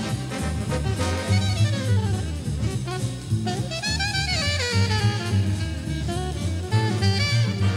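Live big band jazz: a saxophone plays a solo melody with bending, gliding notes over the rhythm section's bass and drum kit.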